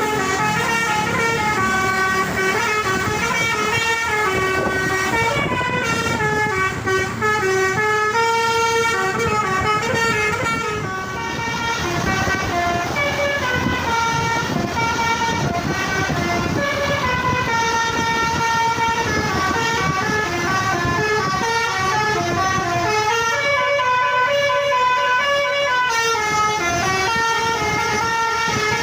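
Basuri telolet horn on a bus playing a long melody without a break: several horn tones sound together, stepping up and down in pitch from note to note.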